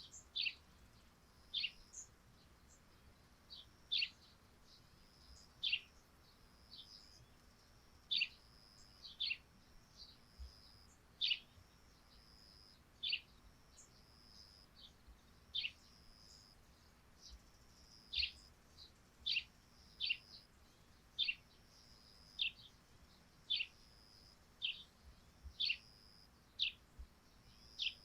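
Eurasian tree sparrows chirping: short, sharp chirps that drop in pitch, repeated irregularly about once a second.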